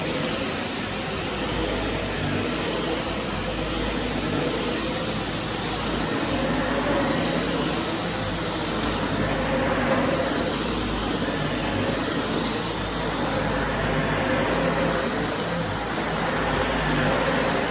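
Vacuum cleaner running steadily, its motor and airflow making an even noise with a low hum, the tone shifting slightly as it is pushed back and forth over the floor.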